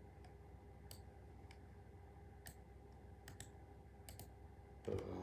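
Faint, scattered clicks of buttons being pressed, some in quick pairs, over a low steady hum. A brief louder sound comes in near the end.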